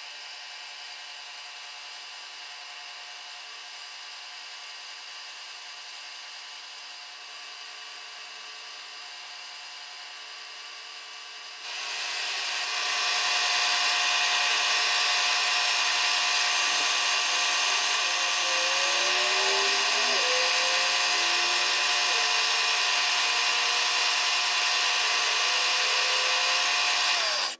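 Milling machine spindle running a slitting saw, first a steady whirr, then much louder from about twelve seconds in as the saw cuts into a small brass part.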